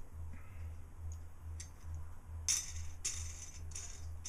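Small metal clicks and scrapes as wing nuts are put onto stainless threaded rods, with a louder scraping clatter a little past halfway. A low pulsing hum runs underneath.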